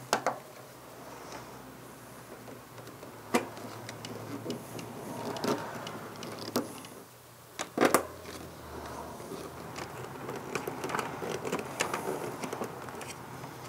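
Hands driving screws with a screwdriver to fix the plastic accordion side panel onto a window air conditioner: scattered sharp plastic clicks and knocks, the loudest near the start and a quick double knock about eight seconds in, between stretches of scratchy rubbing and rattling.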